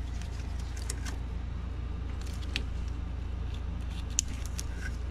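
Small plastic clicks and rattles of an engine-bay wiring connector being handled and pushed onto its plug, with a sharper click about four seconds in, over a steady low hum.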